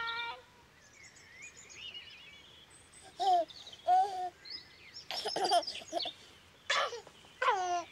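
Birds chirping faintly, then a baby's short coos and giggles, five in all, from about three seconds in; the giggles are the loudest sounds.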